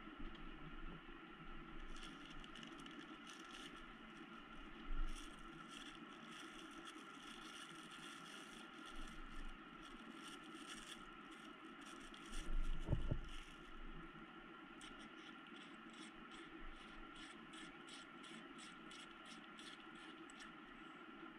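Small clear plastic bag crinkling and rustling in the hands, in quick irregular strokes, with a couple of low handling bumps, about five seconds in and again near the middle. A steady hum runs underneath.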